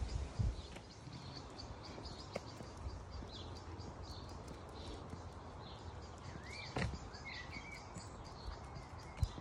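Wild birds singing, with scattered short chirps and a couple of warbling phrases about two-thirds through, over a steady low rumble. A sharp knock comes about seven seconds in and a low thump near the end.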